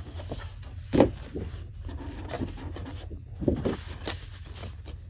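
Sheets of scrapbook paper being handled and shuffled: rustling and sliding, with a sharp tap or slap about a second in and two quicker ones about three and a half seconds in.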